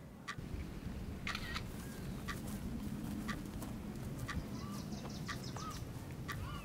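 Outdoor ambience with birds giving short calls. A sharp tick sounds about once a second from about a second in, over a low steady rumble.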